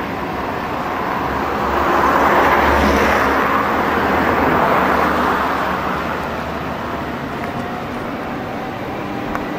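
Road noise of a car on the move: a steady rush of tyres and engine that swells for a few seconds and then eases back.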